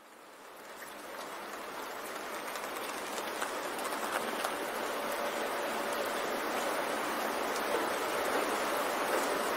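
Steady rushing water noise that fades in from silence over the first two or three seconds, then holds even.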